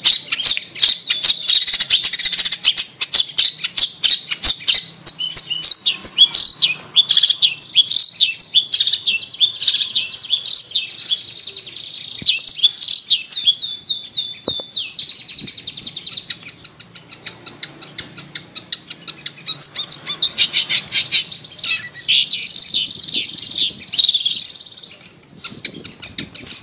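Long-tailed shrike (cendet) song: a fast, unbroken run of high chattering notes and trills. It is a lure recording used to prompt a kept cendet that has stopped singing.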